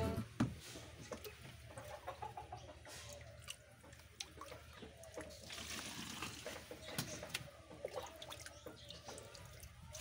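Faint water splashing and dripping, with small clicks, as aquatic plants are lifted out of a fish tank and put into a vessel of water. Faint clucking can be heard in the background.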